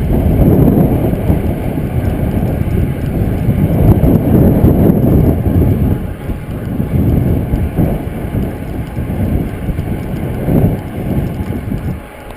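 Wind buffeting the microphone of a camera on a moving bicycle: a loud, uneven low rumble that dips briefly near the end.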